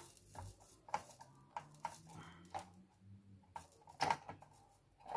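Scattered small clicks and taps of tools working on a motherboard as a swollen electrolytic capacitor is desoldered and pulled off the board.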